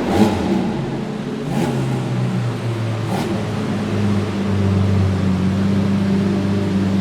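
Supercar engine in a tunnel, blipped three times in quick revs about a second and a half apart, then running steadily at low revs.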